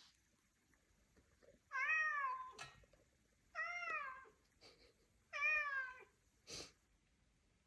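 Domestic cat meowing three times, each call rising then falling in pitch, about two seconds apart: a cat's insistent morning wake-up crying. A short rustle follows the last meow.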